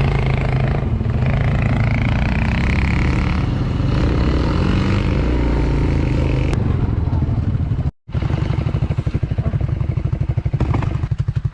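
Off-road vehicle's engine running steadily for about eight seconds. After a brief cut it is heard idling with a rapid, even pulse.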